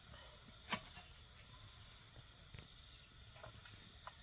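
Crickets trilling steadily and faintly at night, with one sharp click a little under a second in and a few fainter clicks later.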